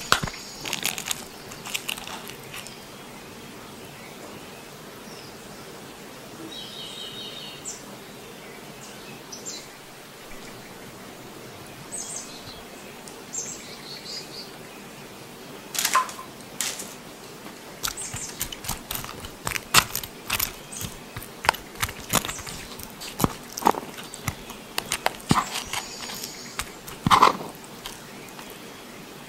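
Crisp shrimp tempura crunching and crackling as a metal spoon digs through it into rice in a wooden bowl. There are a few sharp clicks near the start, a quieter stretch in the middle, and a dense run of clicks and crunches through the second half.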